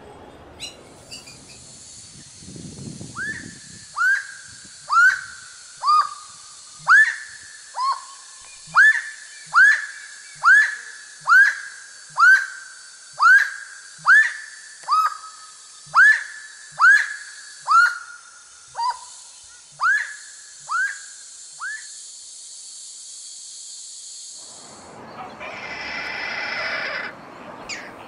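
Grey-cowled wood-rail calling: a long series of loud whistled notes, each sliding downward, about one a second, over a steady high hiss. A short harsh call follows near the end.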